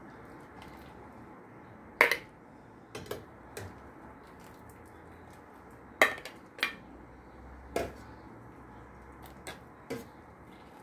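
Perforated metal skimmer clinking against a stainless steel pot while boiled dumplings are scooped out, about eight sharp knocks at irregular intervals, the loudest about two and six seconds in.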